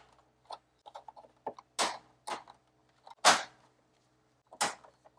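Amber marker lights snapping into the clips of a plastic TRD Pro-style grille: a string of sharp plastic clicks, the loudest about two, three and four and a half seconds in, with smaller clicks between.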